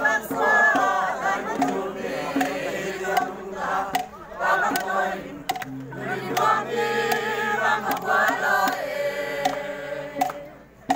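A group of voices singing together in chorus, with sharp percussive beats.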